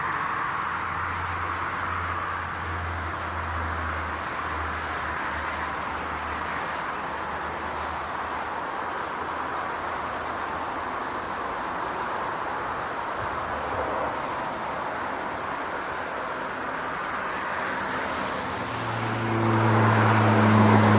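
Steady roar of aircraft jet engines, with a low engine drone that grows louder about nineteen seconds in.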